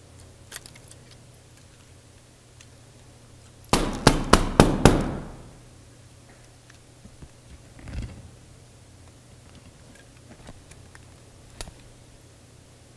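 Small plastic and metal parts of a Canon Rebel DSLR body clicking and snapping as it is pried apart by hand: a quick run of about six sharp clicks a little under 4 s in, then scattered lighter clicks and a soft knock about 8 s in.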